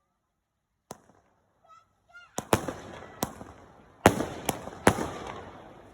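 Fireworks going off: about six sharp, loud bangs at irregular intervals starting about two and a half seconds in, with crackling in between.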